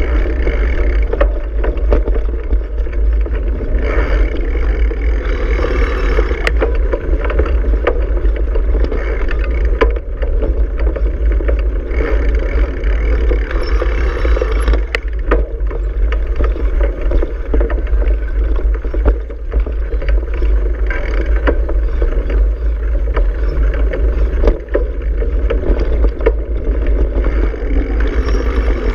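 Bicycle riding over a dirt road, heard through a camera mounted on the bike. There is a steady, heavy low rumble of wind and road vibration on the microphone, with frequent small knocks and rattles from bumps.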